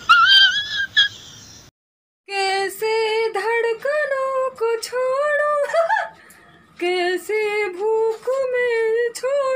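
A woman's voice singing in a high sing-song manner, holding steady notes, in two phrases with a short break in the middle. It is preceded by a brief high-pitched exclamation at the very start.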